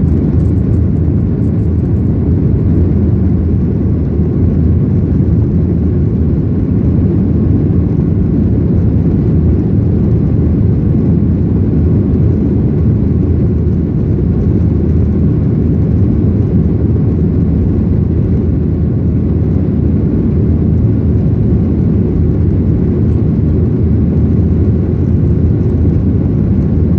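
Jet airliner taking off, a loud, steady low rumble of engines and airflow that holds without change.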